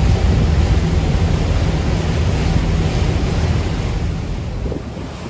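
Wind buffeting the microphone on the open deck of a river tour boat under way, over a steady low rumble of the boat and water rushing past the hull; it eases slightly near the end.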